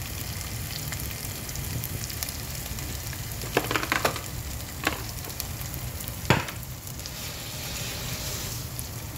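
Tempering spices and curry leaves sizzling steadily as they fry in a metal pot, with turmeric just added. A wooden spatula stirs them and knocks against the pot four times in the middle stretch, the last knock the sharpest.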